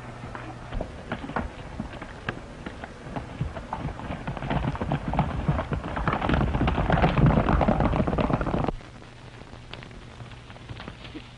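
Horses' hooves beating on dirt: a dense, irregular run of beats that grows louder and then cuts off abruptly about nine seconds in. Under it and after it run the steady low hum and hiss of an old film soundtrack.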